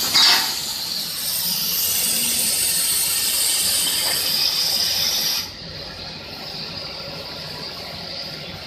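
Steady, loud hiss of rushing air that cuts off abruptly about five and a half seconds in, leaving a lower background noise. A short, loud knock comes right at the start.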